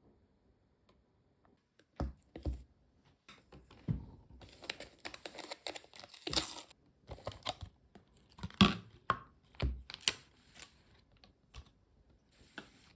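Irregular clicks, taps and crinkly rustling of things being handled close to the microphone, starting about two seconds in and busiest in the middle.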